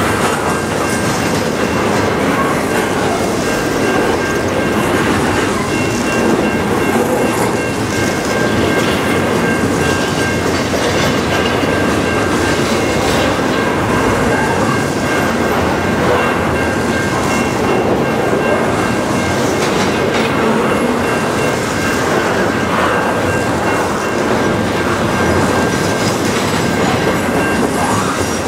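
Double-stack intermodal container well cars rolling past at steady speed: a continuous loud rumble of steel wheels on rail with clickety-clack over the joints. A thin steady high tone rides over it.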